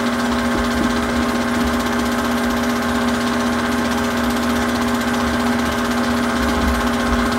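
Super 8 film projector running: a steady mechanical whir with a constant hum.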